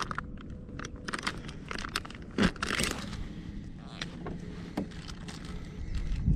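Plastic soft-bait packaging crinkling and rustling as it is handled, with scattered small crackles and clicks, the busiest stretch about halfway through.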